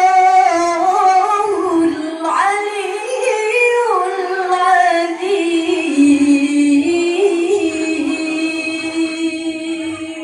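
A woman chanting melodic Quran recitation (tilawah). She holds long notes and winds them through ornamental turns up and down in pitch, and grows softer near the end.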